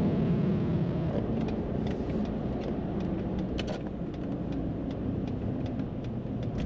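Steady road and engine noise of a moving car heard from inside the cabin, with a few faint clicks.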